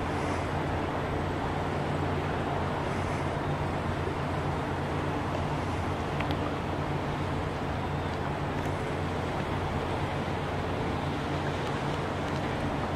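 Steady low drone of a passing 1,000-foot Great Lakes ore freighter, a constant deep hum under a broad rumble that does not change.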